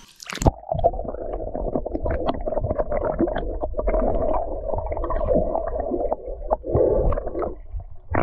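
Water heard through a submerged action camera: a muffled rumble and gurgle of moving water and bubbles with many small clicks and knocks. It follows a splash about half a second in as the camera goes under.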